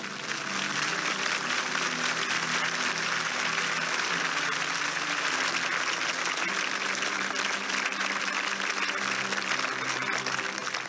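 Large crowd applauding steadily: a dense, even clatter of many hands that holds at one level throughout.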